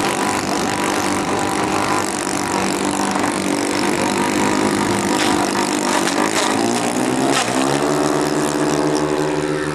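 Twin propeller motors of a radio-controlled Canadair CL-415 model seaplane running steadily, then rising sharply in pitch about seven and a half seconds in as the throttle opens for its takeoff run across the water.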